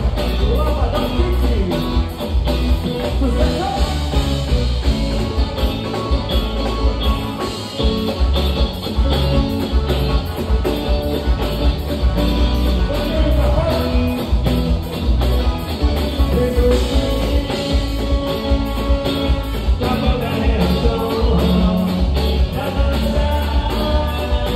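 Live band music: a man singing into a microphone over electric guitars and a drum kit, with a heavy, steady low bass beat.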